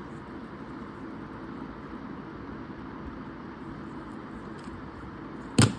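Steady low background hiss, then one sharp knock near the end.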